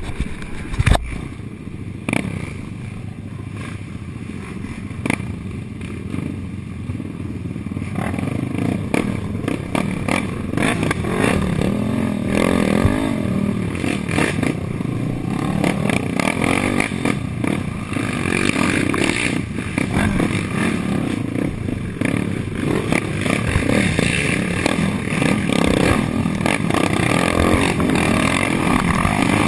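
Suzuki LT-R450 racing quad's 450 cc single-cylinder four-stroke engine revving up and down under hard riding, louder from about eight seconds in. Sharp knocks and clatter near the start as the machine bounces over rough trail.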